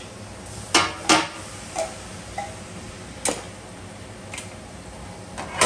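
Tin cans clinking and knocking against a stainless steel stockpot and the worktop as canned coconut milk is emptied into the pot: a handful of sharp metallic knocks, some with a short ring. The loudest two come close together about a second in, another after about three seconds, and one more at the end.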